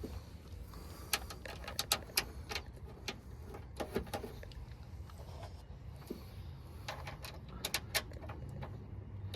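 Scattered small metallic clicks and ticks of T25 Torx screws being fitted and driven in to fasten a door latch actuator inside a car door, in clusters over a low steady hum.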